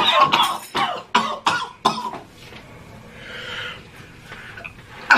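A man coughing several times in the first two seconds, then breathing out hard more softly, choking on the burn of very spicy noodles.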